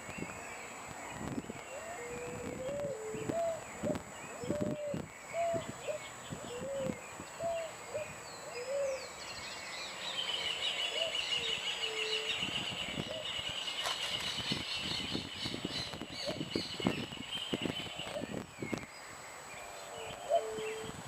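Lagoon soundscape: a run of about eight short, low, arching animal calls a little under a second apart, then a long high bird trill. Partway through the trill a fish leaps out of the water with a few sharp splashes.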